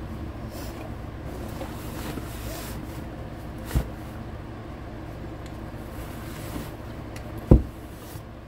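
Handling noise as items are moved about while one storage caddy is swapped for another: a light knock about four seconds in and a louder thump near the end, over a steady low hum.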